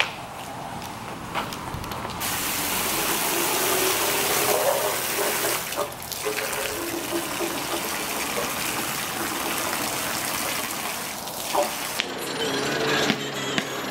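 Steady rush of water, starting abruptly about two seconds in and cutting off near the end.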